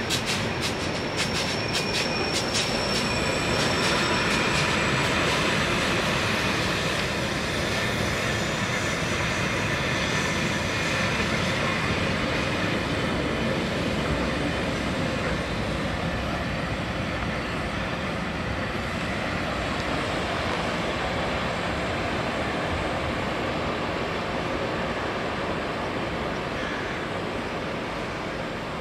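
Passenger train hauled by a ČD class 210 electric locomotive rolling slowly past. Its wheels click over rail joints in the first few seconds and squeal high, over a steady rumble that slowly fades near the end.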